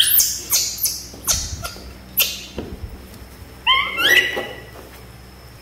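Young macaques eating boiled sweet potato. A run of sharp, wet smacking and chewing noises fills the first couple of seconds, then a few short, high squeaks rising in pitch come about four seconds in.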